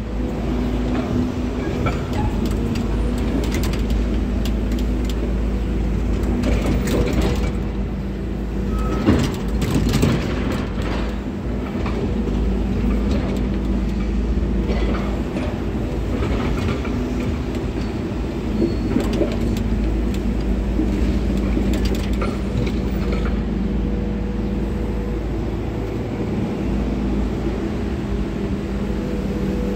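Diesel engine of heavy construction machinery running steadily, with scattered clanks and knocks, most of them about a third of the way through.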